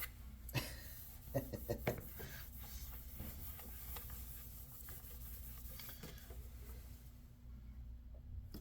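A few light clicks and taps from handling small tools on laptop plastic, over a low steady room hum.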